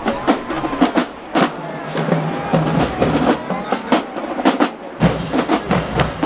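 Marching band drumline playing a fast, driving cadence of snare and bass drum strikes.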